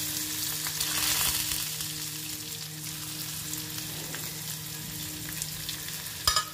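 Chopped onion and potato sizzling as they drop into hot oil tempered with mustard seeds, garlic and cumin in a kadai; the frying hiss is loudest about a second in, then settles to a steady sizzle over a low hum. A sharp knock near the end.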